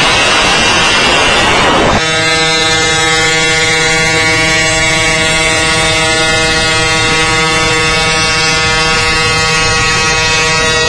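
Vehicle noise at highway speed: wind and road rush at first, then about two seconds in, an abrupt change to a steady engine drone at constant pitch.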